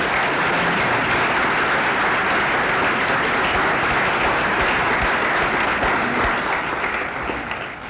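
Lecture-hall audience applauding steadily, the clapping dying away near the end.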